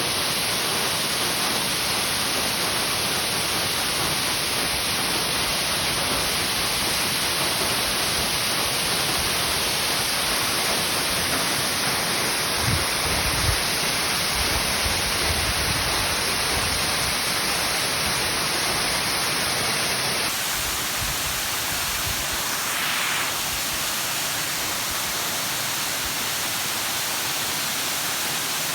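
Ryūzu Falls, a cascading mountain waterfall, rushing as a steady, dense hiss of falling water. A few low bumps come around the middle. About two-thirds through, the rush changes slightly and turns a little quieter.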